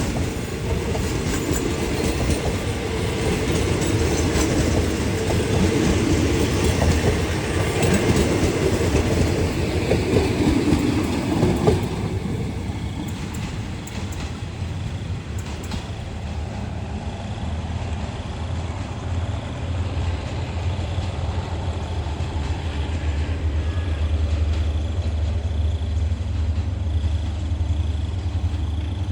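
A diesel-hauled train rolling through the station, its wheels clacking over the rail joints with a heavy rumble. The rolling noise drops away about twelve seconds in, leaving a steady low engine hum.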